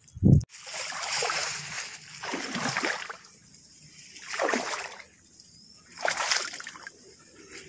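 Shallow muddy creek water splashing and sloshing in four surges about one and a half to two seconds apart, after a short low thump at the start.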